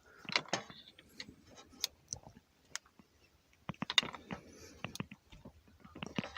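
Scattered small clicks and taps of metal parts being handled, irregular and in short clusters, as propane fittings and the changeover valve are picked up and fitted together.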